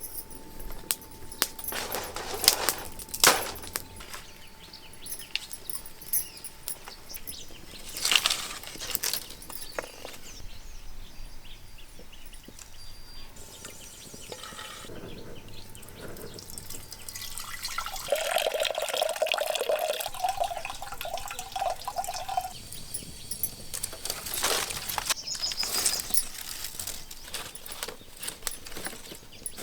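Water being poured and splashed in a cooking pot, with metal vessels clinking and knocking. Over about four seconds two-thirds of the way through, a wavering tone sounds over it.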